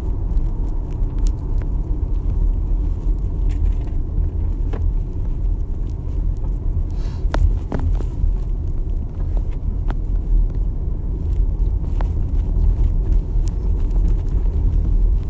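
Steady low rumble of a taxi on the road, engine and tyre noise heard from inside the car's cabin.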